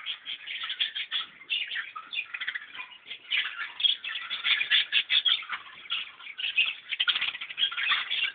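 Many small birds chirping together, a dense, unbroken chatter of short overlapping calls.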